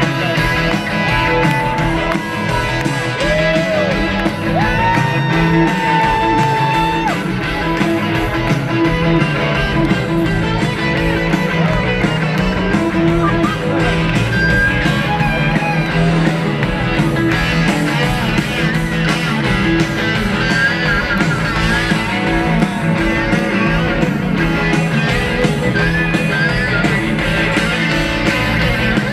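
A live rock band playing loud and without a break, led by electric guitars over drums, keyboards and a string section, heard from the audience. A lead line bends up and down in pitch in the first few seconds.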